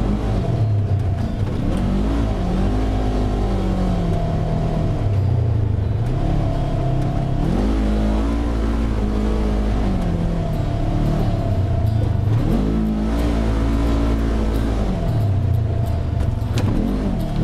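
Side-by-side UTV engine running under load, its pitch rising and falling every few seconds as the vehicle speeds up and eases off.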